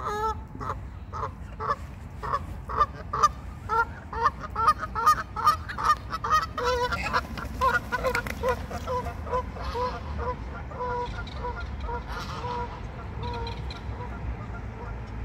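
Waterfowl calling over and over: a run of short pitched calls, about two a second at first, crowding together around the middle, then going on softer and more evenly spaced before thinning out near the end.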